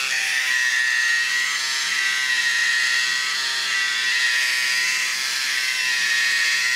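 Small electric gear motor running steadily inside a 3D-printed plastic housing, driving the cam linkage. A high whine with a slight rise and fall in pitch every second or so as the cam turns over.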